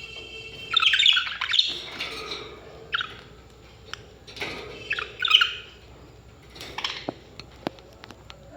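Parrots giving harsh squawks and chirps in short bursts, the loudest about a second in and again around five seconds, followed by a few sharp clicks near the end.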